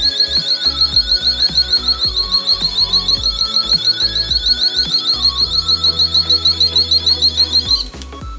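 Electronic buzzer of a homemade infrared-beam door alarm sounding a high shrill tone that pulses rapidly, about six times a second, then cuts off near the end. Background music plays underneath.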